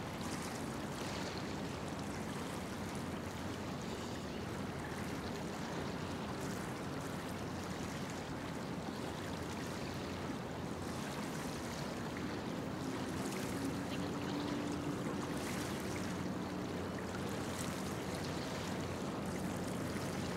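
Steady rushing noise like moving water and wind, with a faint low steady hum joining about halfway through.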